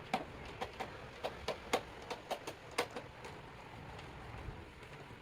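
Light, irregular clicks and knocks from the plastic housing of a table fan being handled and wiped with a wet cloth: about a dozen in the first three seconds, then quiet.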